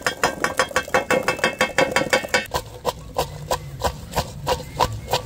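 Shallots knocking into a stone mortar as they are tipped in, then a pestle pounding them in steady strikes, about three a second from about halfway through.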